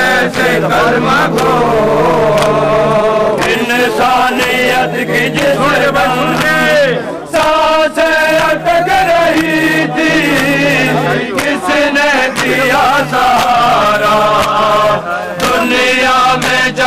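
Loud melodic chanting by voices, with a steady low note held beneath it in long stretches.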